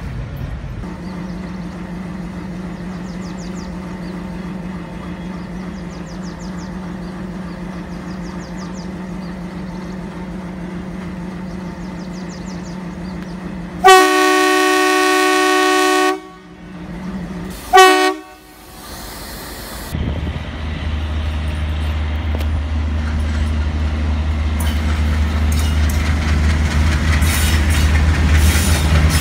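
Indian Railways diesel trains: a steady rumbling hum of a train running past, then a diesel locomotive's air horn sounding twice, a long blast of about two seconds near the middle and a short one a few seconds later. After that a deep diesel engine rumble grows louder as a locomotive approaches and passes.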